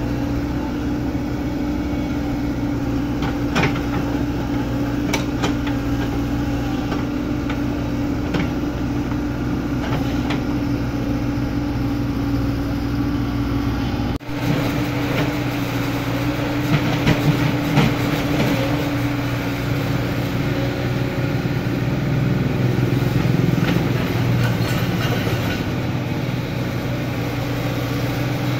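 Komatsu PC75UU excavator's diesel engine running steadily while it works, with scattered sharp knocks and clanks. The sound drops out briefly about halfway through.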